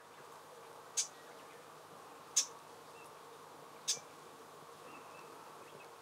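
Japanese bush warbler giving its short, dry 'chat' call note three times, about a second and a half apart, over a steady faint background drone.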